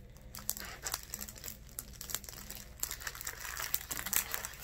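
Clear plastic sheeting around a diamond-painting canvas crinkling as it is handled and rolled up, in irregular crackles.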